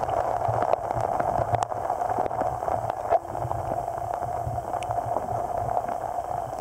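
Water heard through a camera held underwater in its housing: a steady muffled hiss and low rumble, with scattered faint clicks and gurgles as the water stirs around it.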